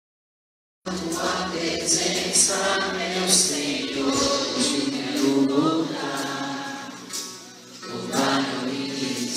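A moment of dead silence, then a choir singing a hymn. The singing thins out briefly about seven and a half seconds in, then goes on.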